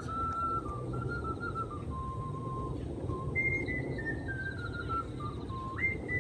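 Ocarina playing a slow melody of pure, clear notes that step mostly downward, leaping back up to start a new phrase about halfway through and again near the end. A steady low rumble runs underneath.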